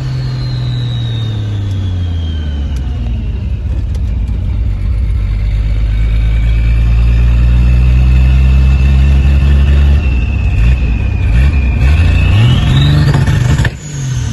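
Turbocharged Chevrolet Opala 4.1 straight-six on the road, its turbo whistling over the engine. The whistle falls as the revs drop over the first few seconds, then holds steady. Near the end the engine revs up with the turbo whistle climbing sharply, then the throttle is cut suddenly.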